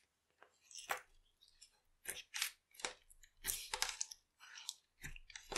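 Clear slime being folded and stretched by hand, giving an irregular run of clicks and crackles.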